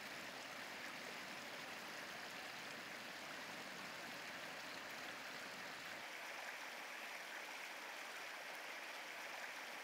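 Steady rushing and babbling of a shallow river, with no bird calls; the deepest part of the sound falls away about six seconds in.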